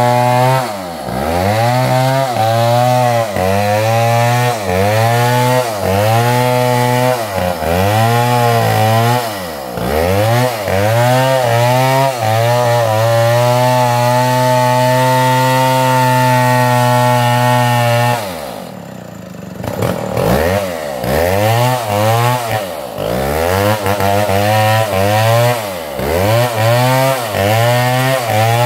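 Two-stroke chainsaw engine revved hard over and over, its pitch dropping briefly and climbing back every second or two. It is held at high revs for several seconds midway, falls to a low idle for a couple of seconds about two-thirds through, then the quick revving resumes.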